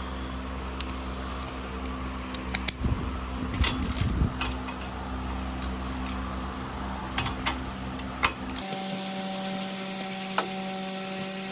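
Hand ratchet wrench clicking in short runs, with metal tools clinking against turbo and exhaust fittings, over a steady background hum.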